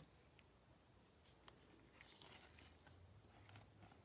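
Near silence, with faint rustles and a few soft clicks of trading cards being handled and flipped through by gloved hands.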